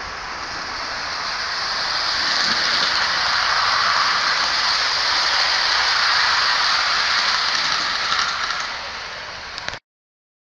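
00 gauge model train running along garden track, the rushing rattle of its wheels on the rails growing louder as it approaches and passes, then easing off. The sound cuts off abruptly near the end.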